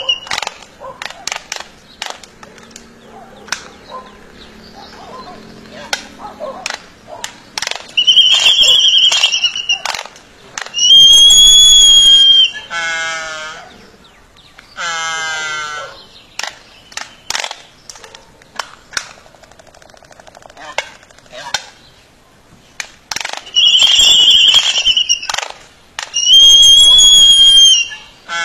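A pair of Laysan albatrosses in their courtship dance: rapid bill clacks and snaps throughout, four high whistled calls of about a second and a half each, and two falling, drawn-out calls in the middle.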